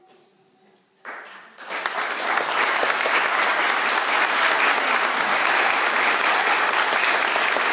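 Audience applause, breaking out suddenly about a second in and then going on steadily as dense, even clapping.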